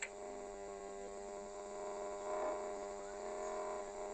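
A steady, buzzing hum with many overtones. It starts with a click and holds an even pitch throughout.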